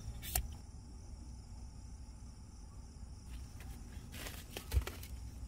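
Steady chirring of crickets in the night air. There is a sharp click near the start, a brief rustle of a plastic tissue pack being handled about four seconds in, and just after it a short thump, the loudest sound.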